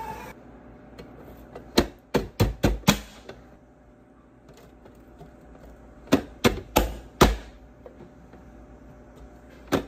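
Hand-pressed vegetable chopper dicing red bell pepper: the plastic lid is slammed down through the blade grid in two quick runs of about five sharp clacks, with a couple more near the end.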